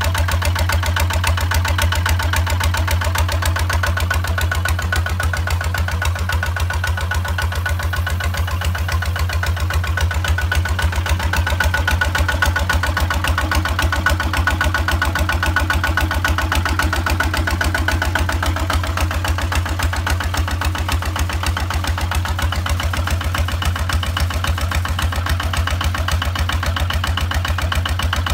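Kubota ZT-155 single-cylinder diesel engine on a walking tractor, running steadily at a constant speed with an even firing beat.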